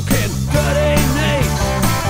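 Rock song with a steady drum beat, bass and electric guitar, and a man singing the melody.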